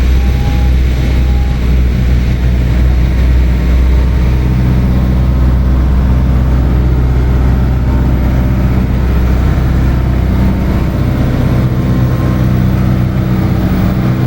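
Ferry boat's engine running steadily: a loud, low, even hum with a noisy wash above it.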